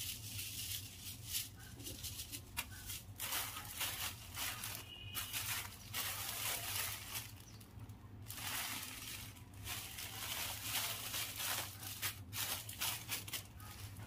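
Small clear plastic packets of pop-pop snappers crinkling and rustling as they are handled, with the loose paper-twist snappers rattling in the hands, in irregular bursts.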